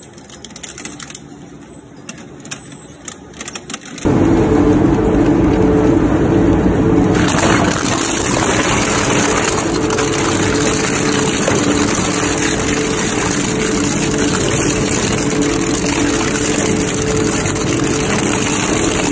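Industrial twin-shaft plastic shredder cracking and crunching a plastic toy car. About four seconds in, the sound jumps to a loud, steady machine drone with a hum as the shredder runs on a load of plastic caps and spray nozzles.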